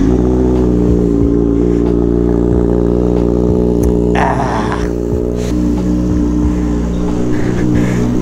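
Kawasaki ZX-6R 636's inline-four engine idling steadily just after being started, warming up.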